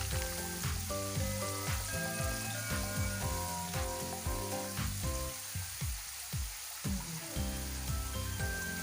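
Sweet potato fries sizzling steadily in hot oil, with brown sugar melting among them over high heat, under background music with a regular beat and melodic notes.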